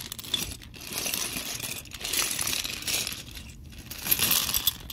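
Plastic Lego bricks pouring out of a plastic bag and clattering onto a wooden floor, a rattle of many small clicks that comes in three spells.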